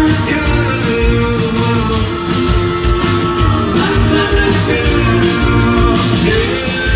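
Live rock band playing loud through a concert PA, recorded from the audience: a steady kick-drum beat about twice a second under bass and guitar.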